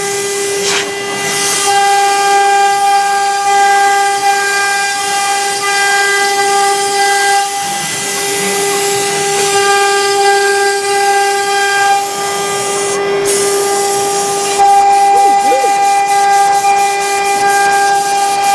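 CNC router spindle running at high speed, a steady high whine over a hiss of cutting noise, dipping briefly twice as the cut changes.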